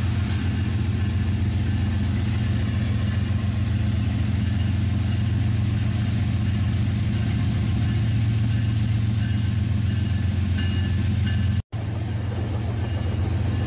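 Steady low engine-like drone that stays even, dropping out for an instant about twelve seconds in where the picture cuts.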